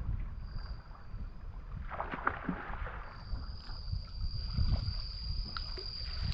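Wind rumbling on the microphone with water sloshing and splashing about two seconds in, under a steady high-pitched whine.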